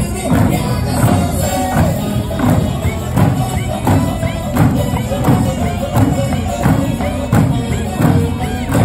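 Eisa drumming: large barrel drums and small hand-held paranku drums struck together on a steady beat, about two strokes a second, over music.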